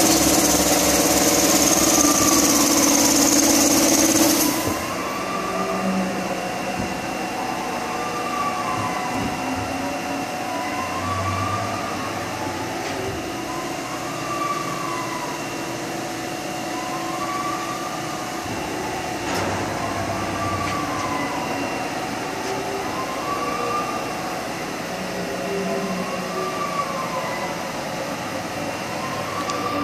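1995 Haas VF6 vertical machining centre running a cycle. Over its steady machine hum, the axis drives whine up and down in pitch about every two seconds as the table traverses back and forth. A louder, hissy sound runs for about the first four seconds and then drops away.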